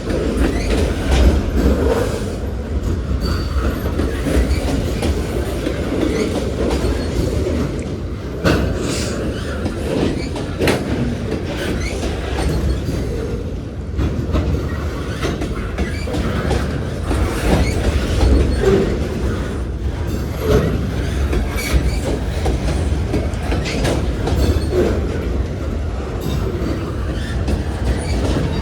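Freight train cars rolling past close by: a steady rumble of steel wheels on rail, with sharp clicks as the wheels cross rail joints.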